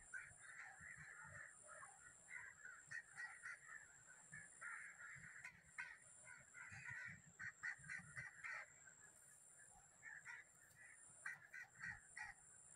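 Faint bird calls: short, harsh calls coming in quick clusters, over a steady high-pitched hum.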